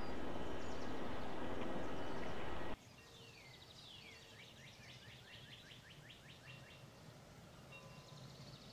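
A steady, loud noise cuts off abruptly under three seconds in. Then faint bird calls follow: a couple of downward-sweeping chirps, then a quick run of short descending chirps.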